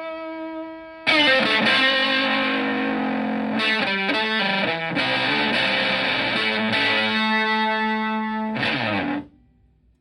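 Electric guitar (Stratocaster) through a germanium Fuzzrite fuzz pedal into a Twin Reverb-style amp. A held fuzzed note fades, then about a second in loud, fuzzy chords and notes are played. They stop abruptly near the end.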